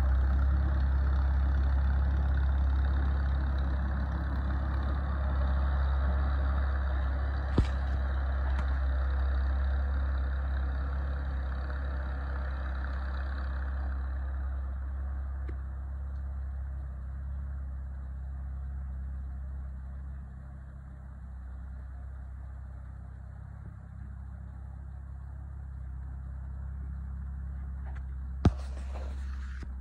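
Small vintage farm tractor engine running steadily with a low hum, fading gradually as the tractor drives away. A sharp click sounds about a quarter of the way in, and a louder one near the end.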